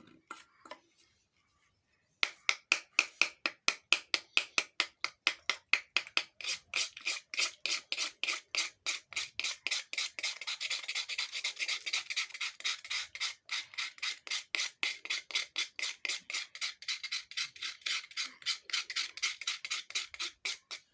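Rapid, even rasping strokes, about four a second, like something being scraped or grated by hand. They start about two seconds in and keep up steadily.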